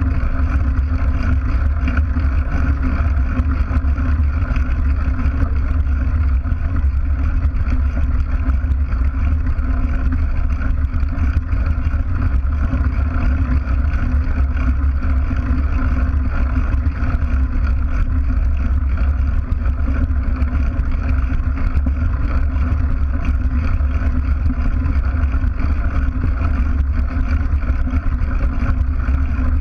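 Steady low rumble of a mountain bike's knobbly tyres rolling over a dirt and gravel track, with the bike's vibration coming through a camera mounted on the bike by the wheel.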